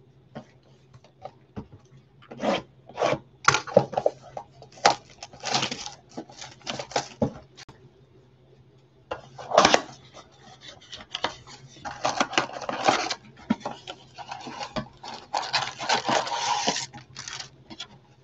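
Cardboard blaster box of trading card packs being torn open by hand and its foil packs handled: a run of sharp crackles and rustles, a pause, then a longer stretch of crinkling in the second half.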